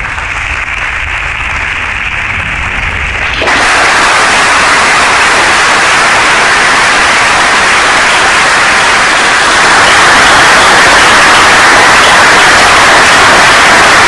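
Audience applauding, a dense, steady clatter of clapping loud enough to sound almost like hiss. It jumps louder and brighter about three and a half seconds in.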